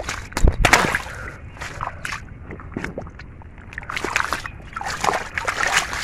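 Splashing and sloshing in shallow muddy water as a large catfish is grabbed and handled by hand. The loudest splashes come about half a second in, with another run of splashes near the end.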